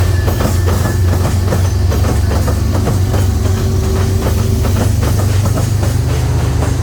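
A train passing close by: a heavy, steady rumble with a quick run of wheel clicks over the rail joints.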